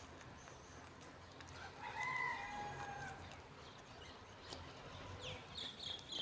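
A rooster crowing once, a drawn-out call about two seconds in that lasts a little over a second. A few short high chirps follow near the end.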